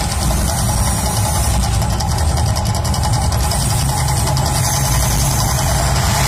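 Mirage volcano attraction erupting: a loud, steady deep rumble with a rapid crackling patter above it through the first few seconds.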